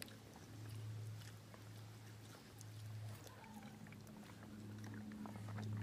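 A low hum that swells and fades about once a second, with faint scattered clicks and rustles of children eating rice and curry by hand off leaf plates.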